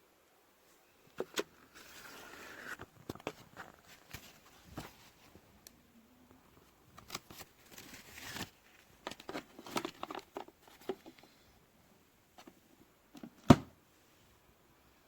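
Handling sounds: scattered clicks and knocks with short stretches of rustling, as of small objects being picked up and set down. The loudest is a single sharp knock near the end.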